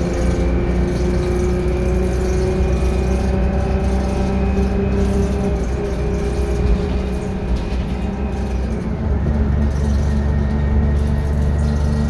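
Detroit Diesel 6V71N two-stroke V6 diesel of a 1982 GM New Look bus, running under way and heard from inside the cabin at the rear. A whine rises slowly in pitch over the first few seconds, and about nine seconds in the sound changes to a deeper, stronger low drone.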